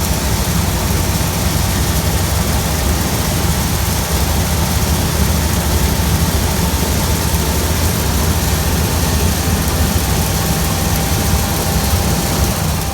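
John Deere S780 track combine running steadily: a constant low engine drone under a steady hiss of machinery, with a faint steady whine.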